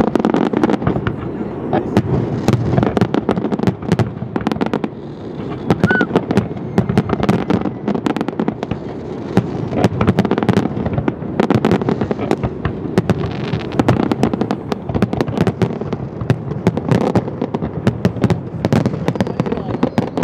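Aerial fireworks display going off without pause: a dense run of overlapping bangs and crackles.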